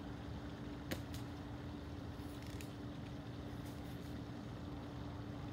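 A BB gun firing, heard as one sharp click about a second in with a fainter click right after, over a steady outdoor background hum with a constant low drone.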